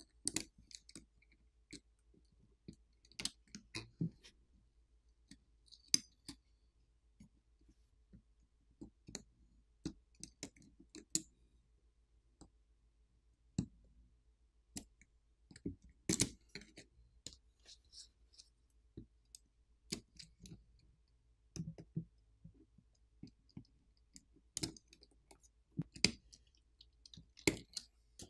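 Scattered, irregular small clicks and taps of a plastic pry pick working on an iPhone 15 Pro's logic board, popping the flex cable connectors loose, a few clicks louder than the rest.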